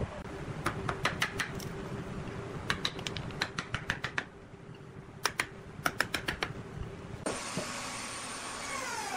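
Runs of sharp clicking taps as a hand tool works against the inside of a turned wooden vase. About seven seconds in, a drill press motor takes over with a steady whine, and a tone in it slides down in pitch near the end.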